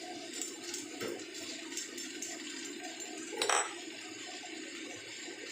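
Garlic chive flower and shrimp stir-fry hissing in the pan just after a little water has been added, with small ticks and one sharp metallic clink about three and a half seconds in.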